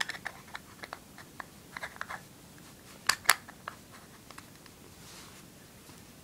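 Small clicks and crackles from a hand handling a fisheye lens adapter and its cap, with two sharper clicks a little after three seconds in.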